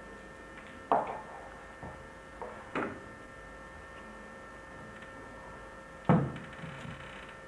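A few sharp wooden knocks and clicks from a pair of doors slowly being pushed open, the loudest about a second in and again near six seconds in, with smaller ones in between. A steady electrical hum underlies them.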